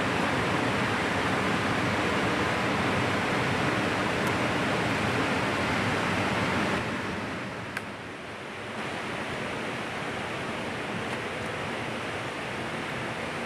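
Steady rushing of a rocky stream's water. It drops to a lower level about seven seconds in, with one faint tick soon after.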